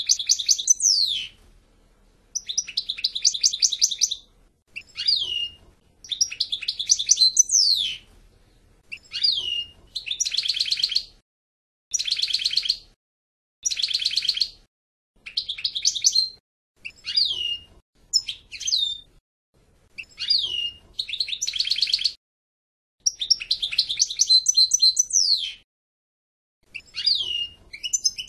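European goldfinch singing: a run of short phrases of fast twittering trills and quick downward-slurred notes, each phrase broken off by a brief pause.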